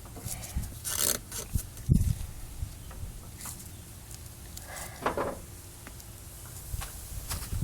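Handling noises from working on an engine's fuel hose: scattered rubbing, scraping and small clicks, with one dull thump about two seconds in.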